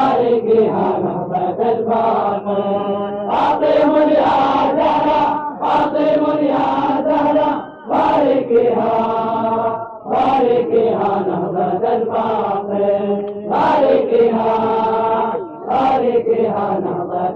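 A man chanting an Arabic mourning elegy (latmiyya) for Fatima al-Zahra, in long drawn-out melodic phrases with short breaks between them.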